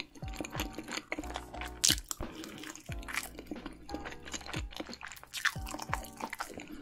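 Close-miked mukbang eating: chewing mouthfuls of cheese-covered food, with many short mouth clicks and smacks. Background music plays underneath.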